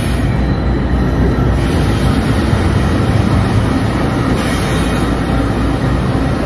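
Union Pacific diesel-electric locomotives passing at close range: a steady low engine rumble mixed with the rolling noise of wheels on the rails.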